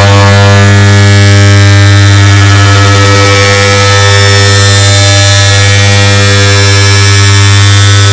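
Air conditioner sound edited to repeat or stack over itself, forming a very loud, steady buzzing hum with a strong low tone and a stack of overtones above it.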